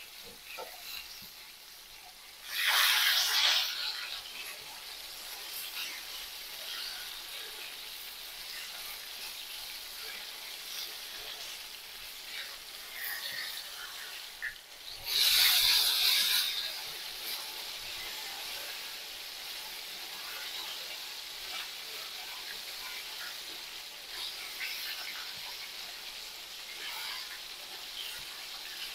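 Battered oyster mushrooms deep-frying in hot oil: a steady sizzle, with two louder surges of spitting, one about two and a half seconds in and one about halfway through, as pieces are moved and turned with tongs.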